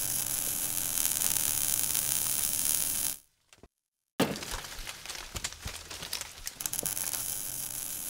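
Animated logo sting sound effects: a dense crackling hiss for about three seconds, a short silence, then a sudden hit about four seconds in that fades through scattered crackles.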